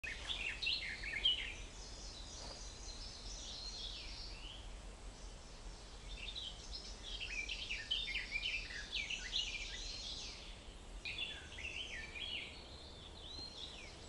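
Several woodland songbirds singing at once, a busy chorus of quick high chirps, trills and warbles overlapping one another, thinning briefly about five seconds in.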